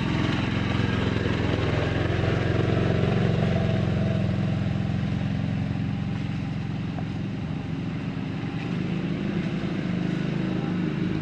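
Quad bike (ATV) engine running close by at low, steady revs.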